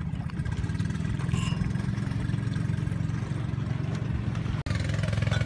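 Motorized bangka outrigger boat's engine running steadily at low speed, a fast, even putter. It drops out for an instant near the end, then carries on.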